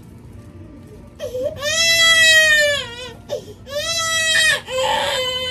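Baby crying hard after his vaccination injections: after a quiet first second come three long, high wails, each trailing off, with a ragged breath between the last two.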